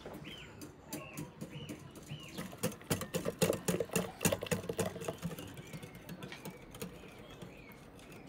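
Wire whisk beating batter in a glass bowl: quick, rhythmic clicking and tapping of the wires against the glass, loudest in the middle stretch and easing off near the end.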